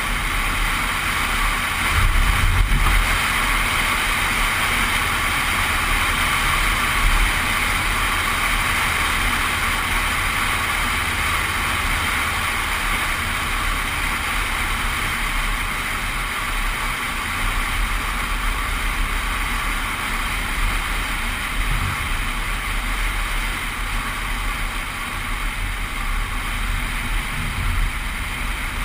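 Suzuki four-wheel drive driving steadily along hard beach sand, its engine and tyre noise mixed with wind rumbling on the microphone, with a brief louder gust or bump about 2 s in.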